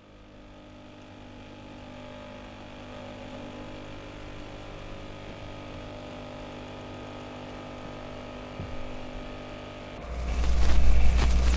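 A steady hum made of several held tones fades in and holds level. About ten seconds in, a much louder rushing noise with a deep rumble starts suddenly on top of it.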